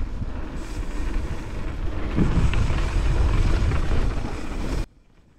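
Wind buffeting the microphone of a mountain biker's action camera, over the rumble of knobby mountain bike tyres rolling fast on a dirt flow trail. It cuts off suddenly near the end.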